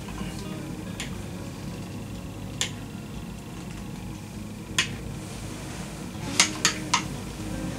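Metal spoon clinking against a glass jar as a thick spread is scooped out and dabbed onto a sponge cake layer. Single sharp clinks come a few seconds apart, then three in quick succession near the end.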